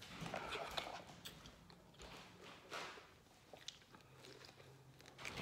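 Biting into and chewing raw lemon wedges: quiet, wet mouth sounds with scattered small clicks.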